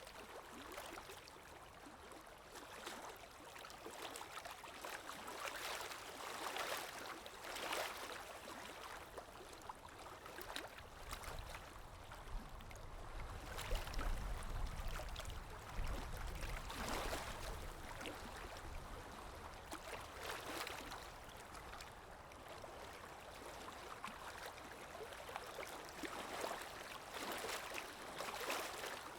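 Calm waves washing in, a steady wash of water that swells gently every few seconds. A low rumble rises briefly near the middle.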